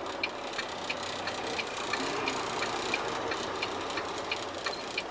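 Semi truck's hazard (four-way) flasher clicking about three times a second over the steady hum of the truck cab.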